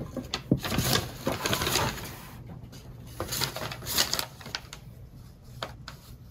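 Tissue paper and gift wrap being handled, crinkling and rustling in short crackly bursts. The bursts are busiest in the first two seconds, come again briefly around the middle, then thin out.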